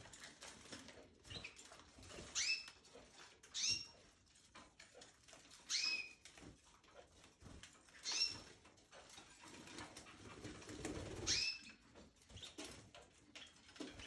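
Caged canaries and finches giving short chirps, five clear ones spaced a second or two apart, each sweeping quickly down in pitch. Soft clicks and scratches of birds moving about the cage run underneath.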